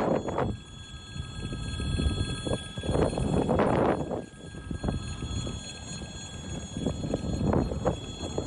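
Wind buffeting a phone's microphone outdoors: a low rumble with irregular gusts, the strongest about three seconds in.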